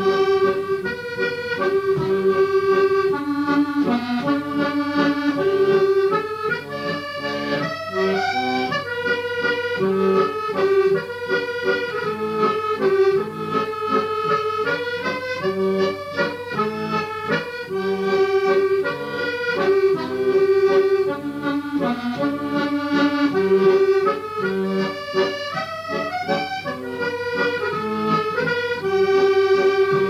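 Accordion playing a traditional-style tune: a melody of held notes over a pulsing bass-and-chord accompaniment.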